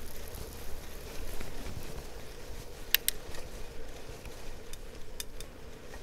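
Wind on the microphone and road rumble from a moving bicycle, with a sharp double click about three seconds in and a few fainter clicks near the end.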